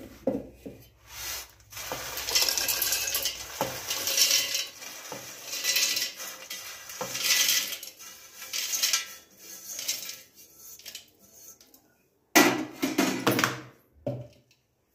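Handfuls of dry roasted chickpeas rattling into a stainless steel mixer-grinder jar and scraping on a steel plate. The rattles come in repeated uneven bursts, and the loudest is near the end.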